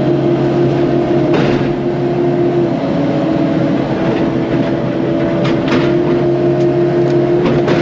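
Caterpillar 308 mini excavator's diesel engine running steadily under work, with a constant hum over it and a few short, sharp knocks.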